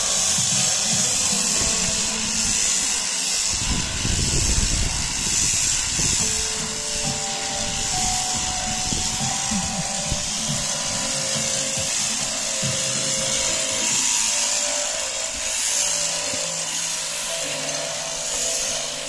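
Electric sheep-shearing handpiece on a drive shaft running steadily, its cutter chattering through the fleece as a sheep is shorn. A brief low rumble about four seconds in.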